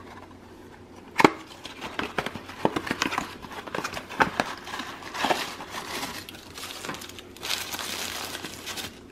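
A small cardboard gift box is handled and opened by hand, with one sharp click about a second in. Then tissue paper crinkles and rustles as a small ornament is unwrapped from it, the crinkling densest near the end.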